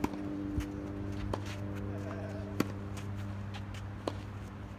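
Tennis balls struck by rackets in a doubles rally: sharp pops about every second and a half, the loudest about halfway through. A steady low hum runs underneath.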